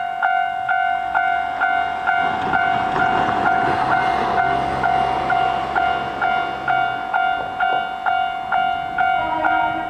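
Japanese level-crossing alarm bell ringing, about two strikes a second. An electric train passes through the crossing in the middle, adding a rumble and a low hum that fade out about seven seconds in.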